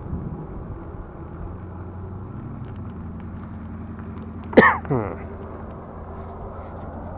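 Steady wind and road rumble as a bicycle rolls along. About four and a half seconds in, the rider sneezes once, loud and sudden, with a short falling tail.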